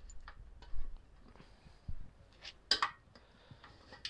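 Scattered clicks and plastic knocks from the locking fuel-tank cover of a Hero Splendor Plus BS6 motorcycle being unlatched and opened by hand, with the loudest clatter near the three-second mark.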